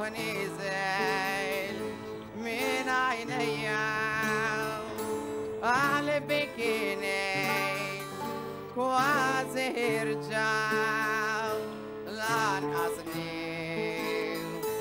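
Background music: a solo voice singing long, ornamented phrases with heavy vibrato over a sustained accompaniment with stepping bass notes.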